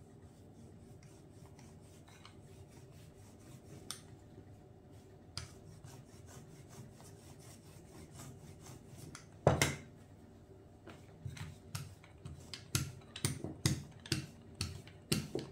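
A small hand dough roller with a plastic handle rolling back and forth over floured dough on a silicone baking mat: a soft rubbing with scattered clicks. There is one sharp knock about halfway through, and a quicker run of knocks and clicks near the end.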